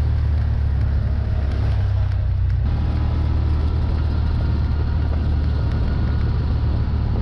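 Side-by-side UTV engine running under way, a steady deep drone. A rougher rush of noise joins it about two and a half seconds in.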